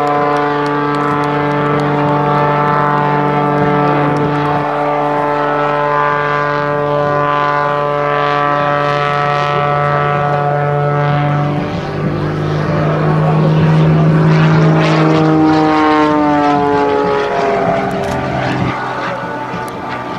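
Pitts S-2C aerobatic biplane's six-cylinder Lycoming engine and propeller droning through its display. The drone holds one pitch, steps up about halfway through, then bends up and down and drops near the end as the plane manoeuvres past.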